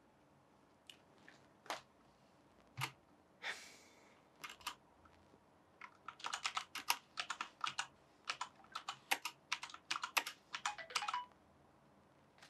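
Typing on a computer keyboard: a few scattered key presses at first, then a quick run of keystrokes from about halfway in that stops shortly before the end.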